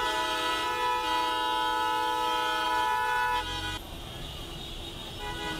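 Several vehicle horns held down together, sounding long overlapping notes at different pitches. The sound drops sharply about three and a half seconds in, leaving fainter horns over street noise.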